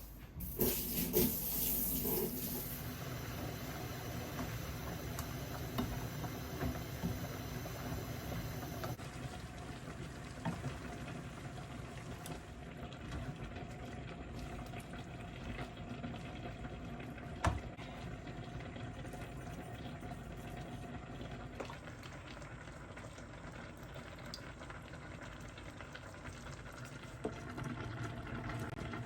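Water running steadily, as from a kitchen tap, with a few sharp knocks; it is louder for the first couple of seconds.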